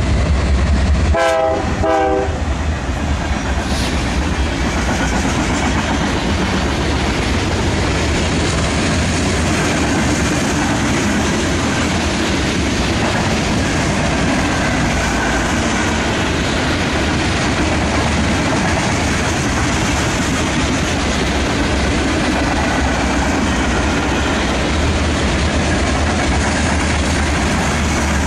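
BNSF diesel locomotives heading a loaded grain train pass with a short horn blast about a second in. A long string of covered hopper cars then rolls steadily by.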